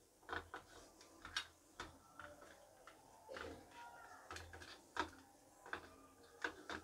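Faint, scattered wet clicks and taps of hands rubbing turmeric and salt into raw fish pieces on a steel plate.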